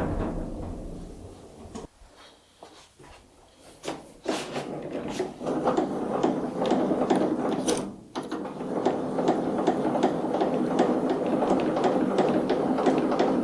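Hand-tool work on a metal snowmobile exhaust: a few separate knocks, then from about four seconds in a continuous run of rapid clicking and scraping.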